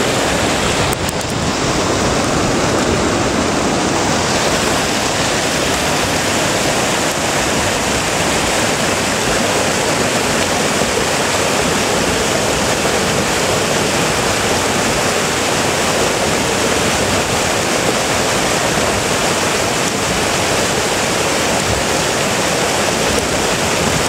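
Sgwd Isaf Clun Gwyn waterfall: water pouring over several rock ledges and rushing through the pool below, a steady, unbroken rush of white water.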